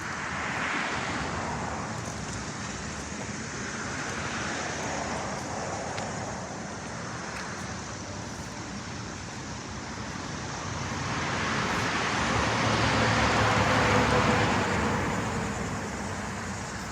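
Road traffic: cars passing one after another, their tyre and engine noise swelling and fading. The loudest pass builds up about eleven seconds in and dies away a few seconds later.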